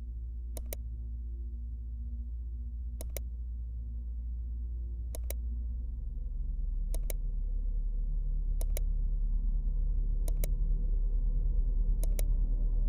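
Laptop trackpad clicks: a sharp press-and-release pair about every two seconds, seven times, over a low droning hum that grows louder through the second half.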